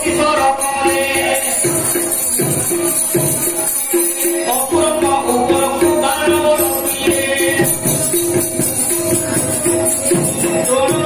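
Live traditional Odia theatre music: steady rhythmic percussion with jingling metal percussion over a repeating melody, pulsing a few times a second.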